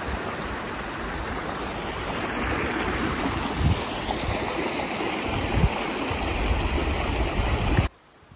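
Mountain creek rushing: a steady dense rush of water, with a few low thumps on the microphone. It cuts off suddenly near the end.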